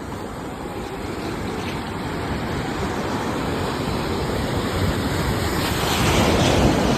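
Ocean surf: waves rushing in, the wash building gradually to a louder wave near the end.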